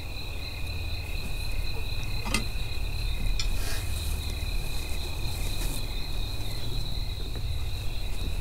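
Crickets chirping in a steady, unbroken trill over a low steady hum, with a single sharp click about two seconds in.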